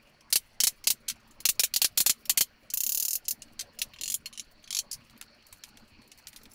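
Mallet taps on a cedar plywood cabinet, knocking glued shelves into place in their rabbets: a run of sharp, uneven knocks, several a second. A short hiss sounds about three seconds in.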